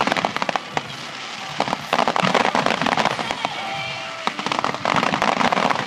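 Fireworks finale: many shells bursting at once into a dense, rapid crackle that comes in waves. It eases off briefly about half a second in and again around four seconds, and swells back each time.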